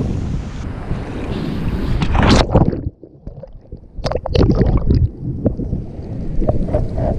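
Sea water splashing and churning right at the microphone as a person moves through the surf, with wind buffeting the microphone. Loud surges of splashing come twice, with a short muffled dip just before three seconds in.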